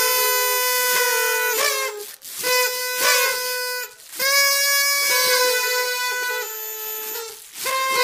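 Party trumpets blown in three steady blasts, with brief breaks about two and four seconds in. The last blast is the longest and drops slightly in pitch near its end.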